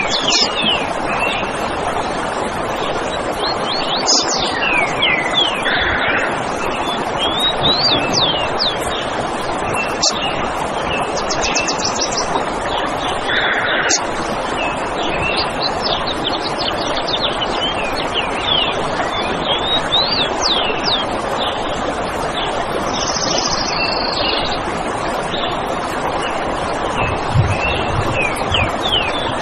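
Forest ambience: many songbirds chirping and calling in short, quick, sliding notes throughout, over a steady rushing background noise.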